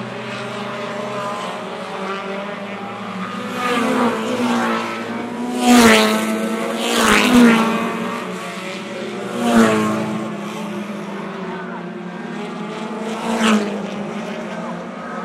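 Race cars running laps on an oval track: a steady engine drone with cars passing close five times, each pass a rise and fall in engine pitch and loudness, the loudest about six and seven seconds in.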